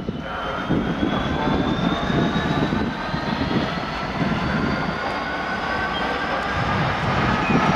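EWS Class 66 diesel-electric locomotive's two-stroke V12 engine running as the locomotive moves slowly through the station. It gives a throbbing rumble under a whine that rises slowly in pitch.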